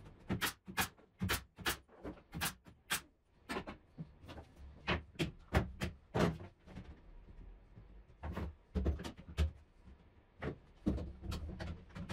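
Quick, irregular knocks and clacks of tools and clamps being handled on a plywood workbench, about two or three a second.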